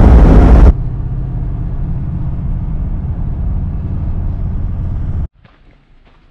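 A vehicle's steady low engine and road rumble while driving. It cuts off abruptly about five seconds in, and a short burst of louder noise ends sharply within the first second.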